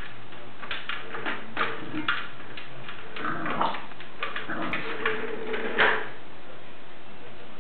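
French bulldog puppy snuffling and snorting as it noses and paws at a plastic canister vacuum cleaner, with short irregular sniffs and light knocks of the plastic. The loudest comes about six seconds in, and then it goes quiet.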